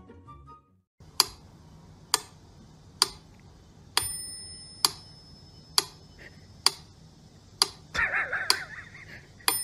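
Sharp, evenly spaced ticks, about one a second, like a ticking clock, with a thin ringing tone over some of them. A brief wavering sound comes near the end.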